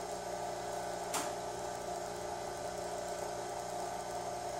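Vacuum pump running steadily, a hum made of several steady tones, with one sharp click about a second in.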